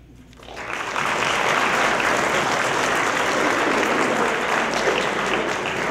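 Audience applauding: steady clapping from a roomful of people that swells up about half a second in and holds.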